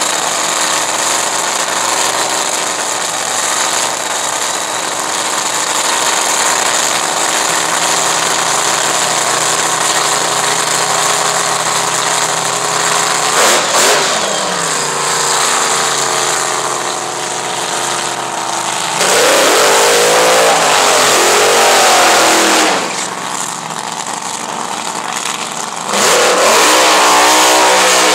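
Supercharged V8 dragster engine idling steadily during a pit warm-up. After a cut, dragster engines run up to full throttle in two loud stretches of a few seconds each, the later one a tyre-smoking burnout.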